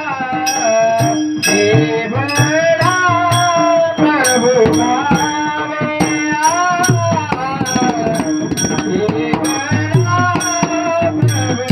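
A kirtankar singing a Varkari chal, a devotional melody with long held, ornamented notes. It is accompanied by regular strokes of small hand cymbals, a steady drone and a low hand drum.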